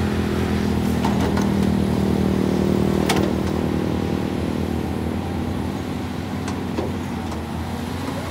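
Caterpillar 320D hydraulic excavator's diesel engine running steadily while the boom and bucket move, with a few sharp knocks, the loudest about three seconds in.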